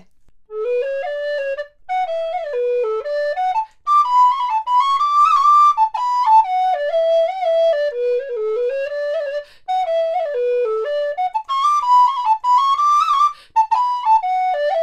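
Vincent Bernolin resin Ganassi alto recorder in G playing a solo melody that steps up and down in single notes, in several short phrases separated by brief breaths.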